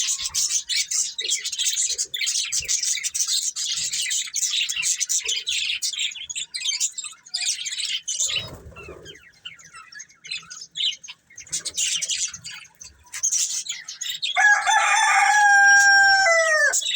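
Budgerigars chirping and chattering in quick high notes, busiest in the first half and sparser after. About three seconds before the end, a louder, lower, drawn-out bird call holds steady and then falls in pitch at its close.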